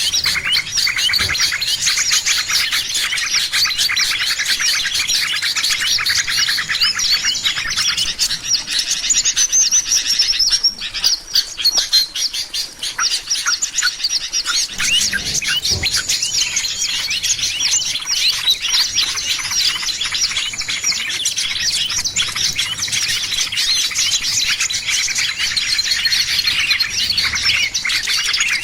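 Dense chorus of many small birds chirping and twittering rapidly in quick high notes, thinning briefly about halfway through. It is a lure call recording meant to draw in small birds.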